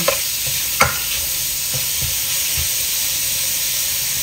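Diced pork belly sizzling steadily in a nonstick wok, with a spatula knocking against the pan twice in the first second.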